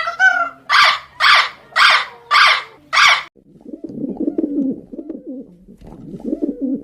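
Recorded animal calls in sequence: a short rising call, then five loud harsh calls about half a second apart, then a low, murmuring cooing that runs on until the sound cuts off at the end.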